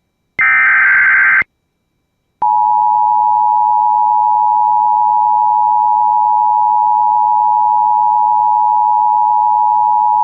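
Emergency Alert System broadcast: a one-second burst of SAME digital header data, a second of silence, then the two-tone EAS attention signal (853 and 960 Hz together) starting about two and a half seconds in and held steady for about eight seconds, marking an incoming tornado warning.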